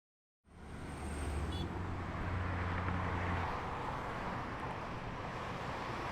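Steady outdoor ambient noise with a low rumble, fading in about half a second in; the deepest part of the rumble drops away about three and a half seconds in.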